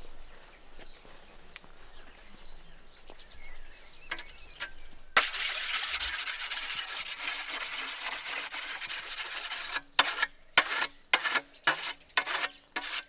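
A whetstone sharpening a scythe blade. It scrapes along the steel steadily from about five seconds in, then changes to separate quick strokes, about two or three a second, near the end.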